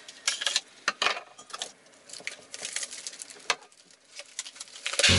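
Plastic food packaging crinkling and rustling in irregular crackles and scrapes as it is cut open with a knife and emptied into a pot. Music starts abruptly at the very end.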